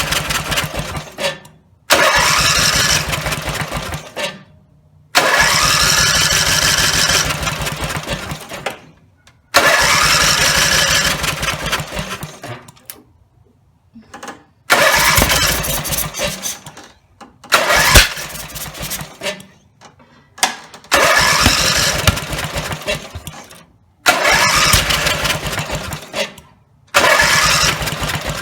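Briggs & Stratton 17 HP riding-mower engine being turned over on its starter again and again, about nine tries of two to four seconds each, every one starting abruptly and fading out, with short pauses between: the freshly rebuilt engine will not keep running.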